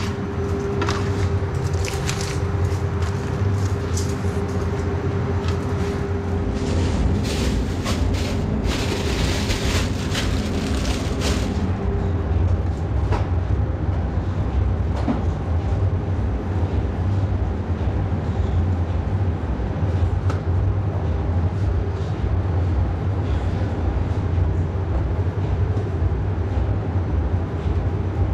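Steady low machine hum of commercial kitchen equipment, with clicks and clatter of handling through roughly the first dozen seconds and a few seconds of hiss just before the clatter stops.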